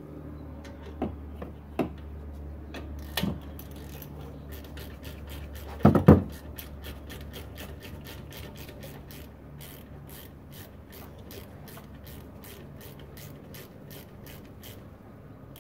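Hand tools working on a car's rear brake caliper: a few sharp metal knocks and a louder clank about six seconds in, then a long, even run of quick clicks, about four a second.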